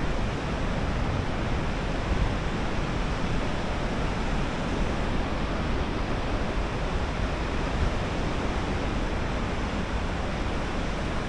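Wind blowing across the microphone: a steady rushing noise with low, uneven buffeting.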